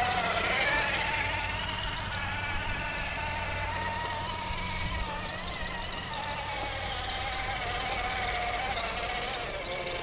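Traxxas TRX-4 crawler on Deep Terrain Traxx tracks running steadily, its electric motor and gear train whining. The whine rises in pitch in the first second, wavers as the load changes, and sinks a little near the end.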